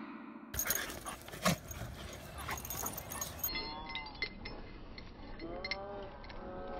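Metal chain collar jingling with small clicks, then a dog whimpering in several short, arching whines, once about four seconds in and again near the end.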